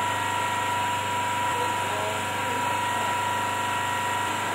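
A steady machine-like hum with a constant high tone running through it, and a few faint distant voices.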